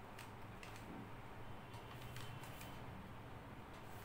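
Faint rustling and crinkling of a white packaging wrap being handled and unwrapped, in scattered soft crackles over a low steady hum.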